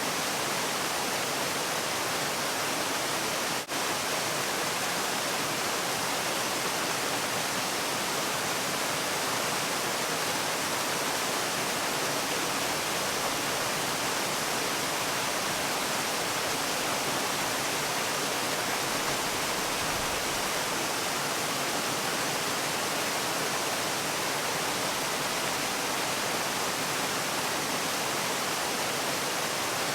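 Waterfall: a steady, even rush of falling water, with a brief dip in level about three and a half seconds in.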